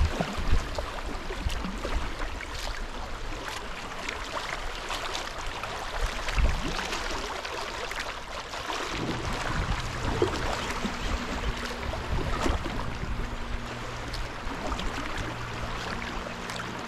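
River water running and splashing around a boat, with many short splashes throughout. A faint low steady hum joins about ten seconds in.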